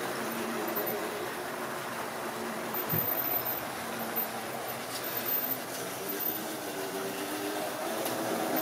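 Tri-ang model train running along the layout's track: a steady whirr and rumble of the motor and the wheels on the rails, with a brief low thump about three seconds in.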